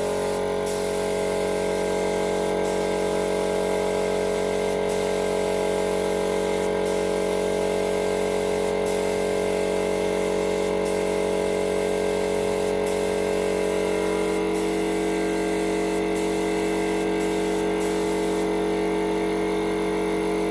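Air spray gun hissing as paint is sprayed, the hiss cutting out briefly about every two seconds as the trigger is let off between passes, over a steady mechanical hum.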